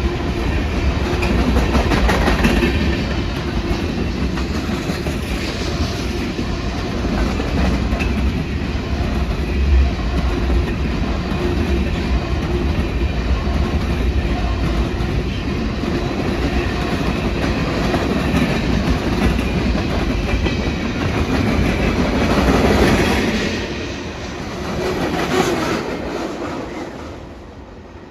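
Freight train of boxcars, covered hoppers and tank cars passing close by, its wheels running over the rails in a steady clatter. Near the end it falls away quickly as the last cars go by.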